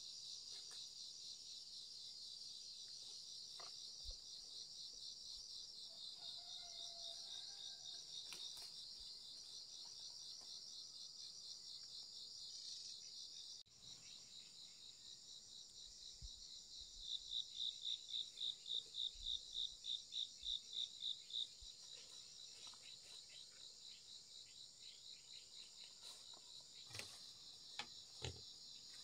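Insects trill in a steady high-pitched chorus. For a few seconds in the middle a louder insect call pulses about three times a second. Near the end come a few rustling footsteps on dry leaf litter.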